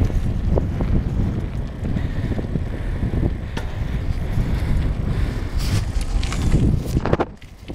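Wind buffeting the camera microphone, a heavy low rumble with a few sharp clicks mixed in. It drops away briefly near the end, then comes back.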